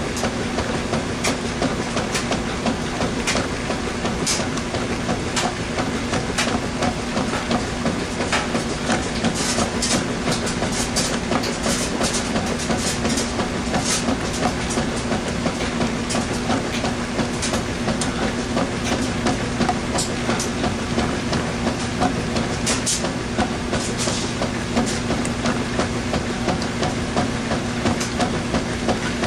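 Washing machine running a wash cycle with a load of towels: a steady motor hum with irregular clicks and rattles from the drum.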